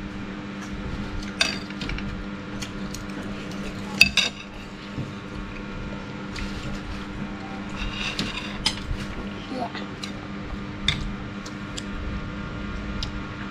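Spoons and a fork clinking and scraping on plates as children eat, in scattered light clinks with a sharper one about four seconds in, over a steady low hum.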